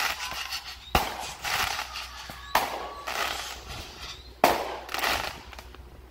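Small consumer aerial fireworks going off: three sharp bangs a second and a half to two seconds apart, each followed by a crackling hiss as the gold sparks burst and burn out.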